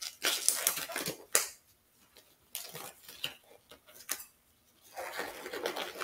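Disposable rubber exam gloves being pulled onto the hands: rustling and stretching of the glove material, with a few sharp snaps, the loudest about a second and a half in.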